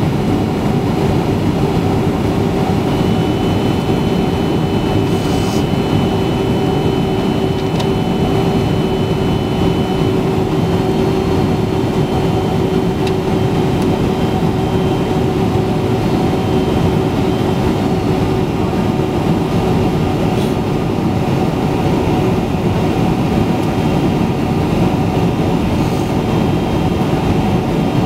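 Steady airliner cabin noise on approach to landing: engine and airflow noise heard from inside the passenger cabin, with a steady droning hum running through it.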